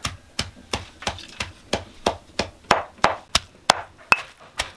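Stone pestle pounding chillies and green leaves in a heavy stone mortar to make chutney: a steady rhythm of sharp strikes, about three a second.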